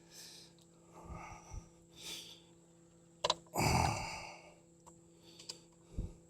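A man breathing out and sighing in short puffs about a second apart while he works, with a sharp click a little over three seconds in, just before the loudest sigh.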